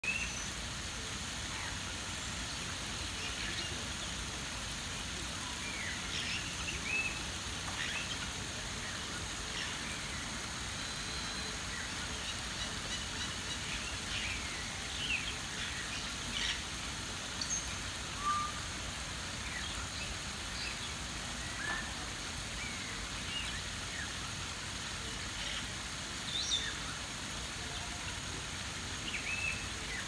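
Many short bird chirps and whistles from several birds, scattered irregularly over a steady background hiss.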